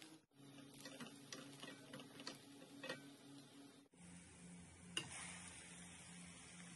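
Faint kitchen handling sounds: scattered light ticks and clicks over a steady low hum, with one sharper click about five seconds in. The sound cuts out briefly twice.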